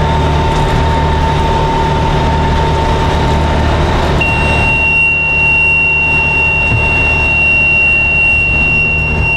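Tractor and John Deere 535 round baler running steadily. About four seconds in, the baler monitor's buzzer starts a continuous high-pitched beep: the oversized-bale warning coming on at only about three feet of bale, which the owner suspects is a bad sensor.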